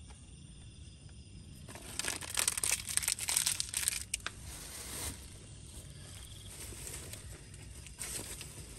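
Plastic packaging crinkling and rustling as it is handled, a dense run of crackling from about two to four seconds in and a shorter burst near the end.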